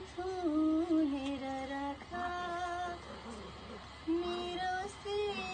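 A woman singing a slow melody without accompaniment, holding long notes, with a pause of about a second in the middle.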